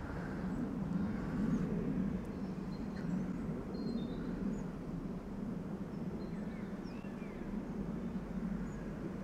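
Steady low outdoor rumble with faint, scattered chirps of small birds.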